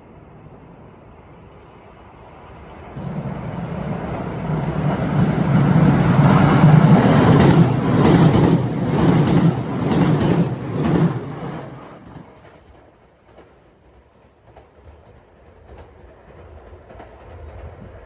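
JR West 223 series 6000 electric multiple unit passing close by: it builds up over a few seconds and peaks with a rhythmic clatter of wheels over the rail joints. It then fades away fairly quickly.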